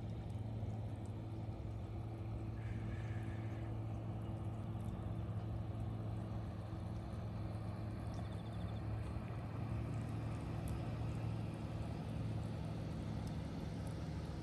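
A steady low engine hum runs unbroken, with two brief high chirps, about three seconds in and again about eight seconds in.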